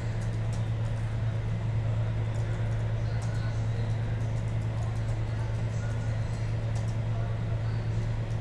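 Steady low hum over even room noise, with a few faint light clicks.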